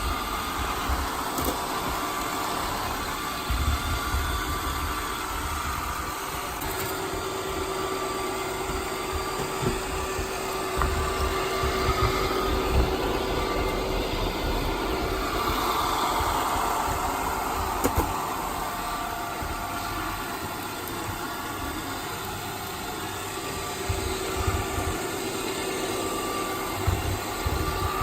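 +Style robot vacuum cleaner running while sucking up debris: a steady motor hum and whine over a rushing noise, with occasional sharp clicks and low knocks.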